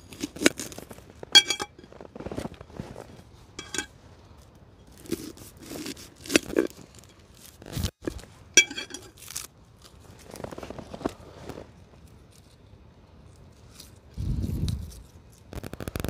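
Hands preparing food: irregular scraping and tearing. Two short metallic clinks ring briefly, about one and a half seconds in and again past the halfway point, and a dull low thump comes near the end.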